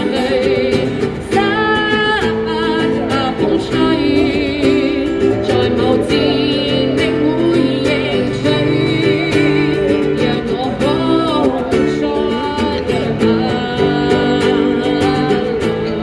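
A woman singing, with vibrato on held notes, to her own strummed acoustic guitar, both amplified live through a small busking amp.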